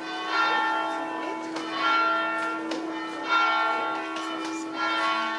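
Church bells ringing, with a new stroke about every second and a half, four in all. The strokes alternate between a lower and a higher bell, and each rings on under the next.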